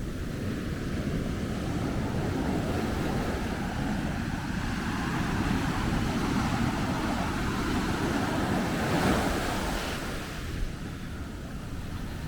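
Ocean surf on a beach: a wave builds, breaks loudest about nine seconds in, then washes back down, with wind rumbling on the microphone throughout.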